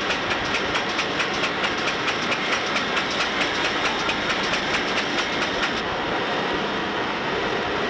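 Automatic facing machine shaping the faces of wooden golf club heads, running with a steady mechanical whir and an even clicking about five times a second. The clicking stops about six seconds in, and the whir carries on.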